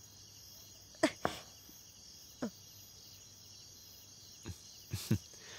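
Faint steady chirring of crickets as a night background, with a few soft short knocks and clicks scattered through it.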